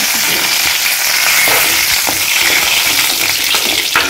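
Curry leaves sizzling and spitting in hot coconut oil with mustard seeds and dried red chillies, a steady frying hiss: the tadka (tempering) for a tomato rasam.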